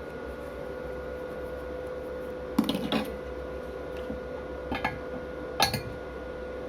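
Basic-coated stick electrode scratched on steel to strike an arc: three brief crackles, a little after two and a half seconds, near five seconds and about five and a half seconds in, that do not settle into a steady arc. A steady electrical hum runs underneath.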